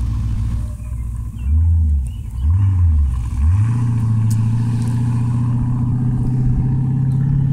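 Off-road race buggy's V8 engine blipped twice, each rev rising and falling, then revved up and held at a steady high pitch under full throttle.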